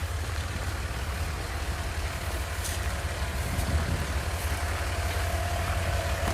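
Vehicle and street traffic rumble, with a faint car horn held steadily in the distance from about halfway through.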